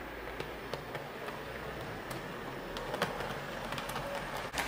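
HO-gauge model train, a KiHa 20 railcar pulling one two-axle boxcar, running along the track: a steady running noise with irregular sharp clicks from the wheels on the rails.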